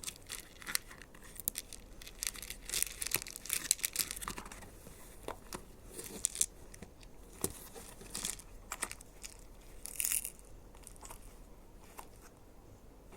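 Packaging crinkling and rustling, with scattered light clicks and taps, as small toy craft pieces are handled.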